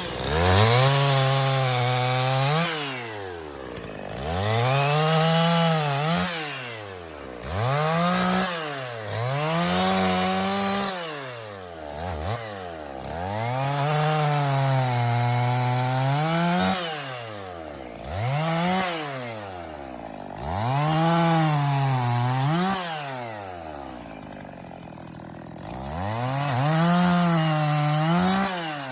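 Two-stroke chainsaw bucking a black walnut log. The engine is revved up into each cut and drops back toward idle, over and over, with a longer idle stretch near the end before one more cut.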